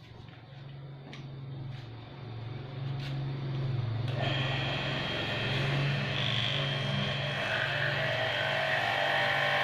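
Electric high-pressure washer running: the 700-watt motor and pump hum steadily while the water jet hisses, the spray getting much louder about four seconds in.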